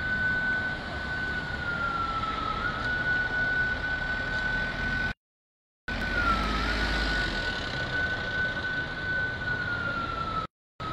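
Emergency vehicle siren: one high tone held mostly steady, sagging slightly in pitch every few seconds before snapping back up. The sound cuts out completely twice, for under a second each time, about halfway through and near the end.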